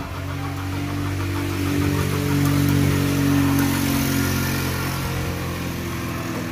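A motor engine running steadily. It grows louder toward the middle and then eases off.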